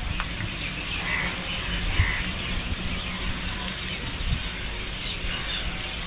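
Wind on the microphone giving a steady low rumble, with a few faint bird chirps over it about a second in, about two seconds in and again near the end.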